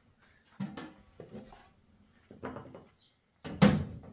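Metal cooking pots and lids handled and set on a gas stove: four short clanks and knocks, the loudest near the end.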